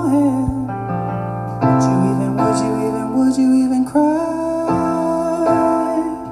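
Live band music: a keyboard plays sustained chords between sung lines, changing chords several times.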